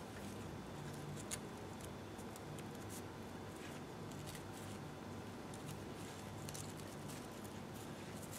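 Faint rustling and light ticks of ribbons being braided by hand, with one sharper click about a second in, over a low steady hum.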